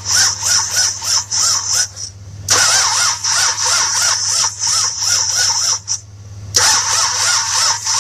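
1966 Buick Riviera's 425 Nailhead V8 cranking on its starter in three bursts with short pauses between, not starting. The starter whine rises and falls about four times a second as the engine turns over slowly; the crank is really slow.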